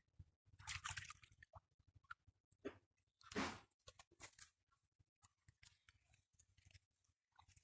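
Faint, scattered wet squelching and splashing of hands working in mud and shallow water, with two louder squelches about one second and three and a half seconds in.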